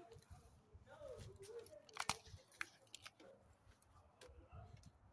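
Faint footsteps and a small dog's claws on outdoor concrete-and-metal stairs as they climb: scattered light taps and clicks, the sharpest a pair about two seconds in and another shortly after.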